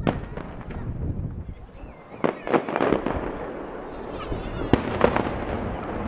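Aerial firework shells bursting: a sharp bang at the start, then two bangs in quick succession about two and a half seconds in and two more near five seconds.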